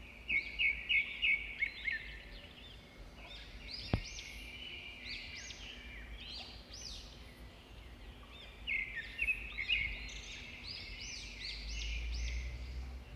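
Birds chirping and twittering, many short high chirps in quick clusters, busiest just after the start and again near the end. A single sharp click comes about four seconds in.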